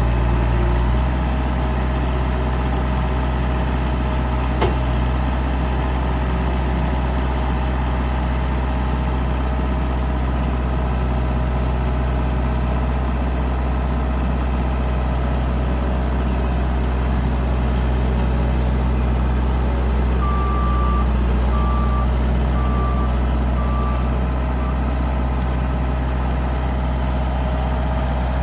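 Diesel engine of a JCB 1CX skid steer backhoe loader running steadily without revving. A row of short, high, evenly spaced beeps sounds about two-thirds of the way through.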